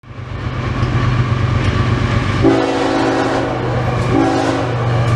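Diesel freight locomotive approaching with a steady low engine rumble; about halfway through its multi-note air horn sounds a chord in two blasts, the second shorter.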